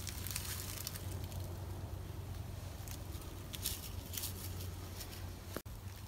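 Quiet background with a steady low hum and a few faint, scattered crackles and rustles, with a brief dropout near the end.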